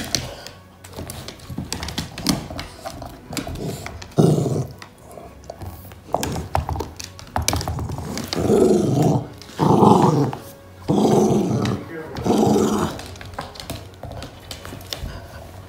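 Poochon dog play-growling in several short bursts, most of them about halfway through, while it tussles with a small ball. Light sharp taps of claws and ball on the hardwood floor sound in between.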